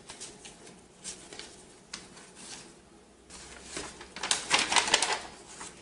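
Paper rustling as the pages of an instruction manual are handled and turned, a few faint scrapes first, then a busier spell of rustling about three seconds in.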